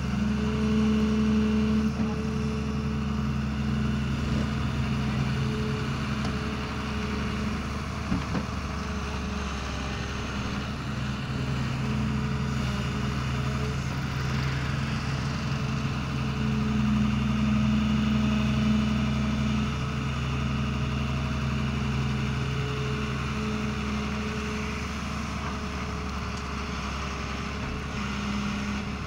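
Doosan DX140W wheeled excavator's diesel engine running steadily under hydraulic load as it digs soil and lifts the bucket, the engine note swelling and easing with the work. A short knock sounds about eight seconds in.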